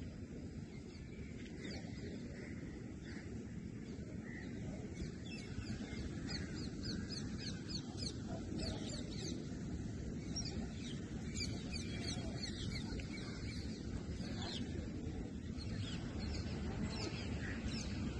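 Birds chirping: a long run of quick, high, falling chirps, several a second, over a steady low outdoor rumble. The chirping sets in about five seconds in and thins out near the end.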